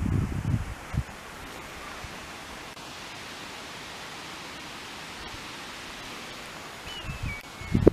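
Steady, even outdoor hiss, with a few low thumps in the first second and a short falling whistle near the end.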